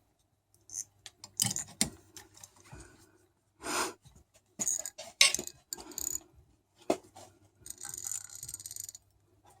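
Small metal parts and hand tools being handled: scattered clicks, clinks and knocks, with about a second of high hiss near the end.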